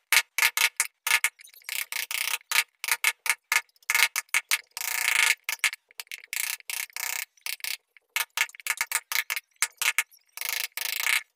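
Wooden mallet striking a carving chisel into a wooden door panel: quick, sharp knocks, about three or four a second, with a couple of brief pauses.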